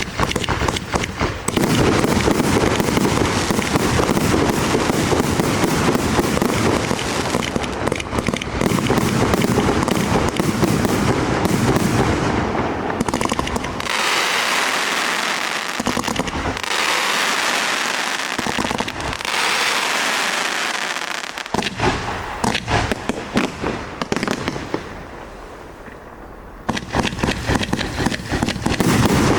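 Firework cake firing: a dense, rapid volley of launching shots, then a stretch of high hissing crackle with few low thumps, more rapid shots, a brief quieter lull, and a fresh rapid volley near the end.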